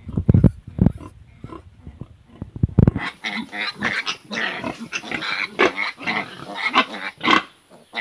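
A sow and her piglets grunting and squealing, a dense run of calls from about three seconds in. Before that, a few loud low thumps.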